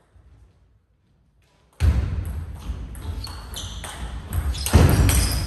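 Table tennis play in a sports hall: near silence, then about two seconds in a sudden busy din sets in, with sharp ball clicks and short high squeaks over steady hall noise.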